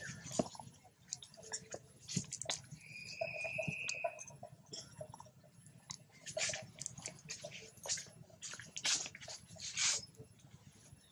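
Macaques scuffling and handling a baby: irregular rustles, clicks and mouth sounds, with one high, steady call lasting about a second about three seconds in.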